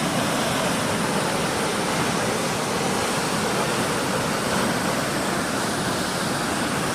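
Waterfall: heavy water falling and rushing in a steady, unbroken roar.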